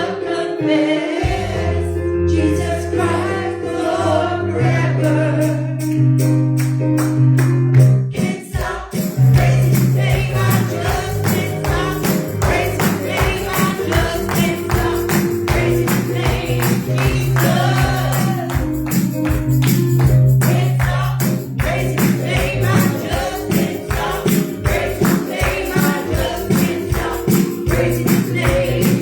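Live gospel worship music: voices singing over a steady beat with tambourine shaking, pausing briefly about eight seconds in and then going on.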